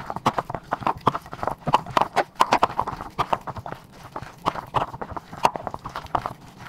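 Raw ground beef mixture being kneaded by a gloved hand in a glass bowl: quick, irregular squishing and slapping, several smacks a second.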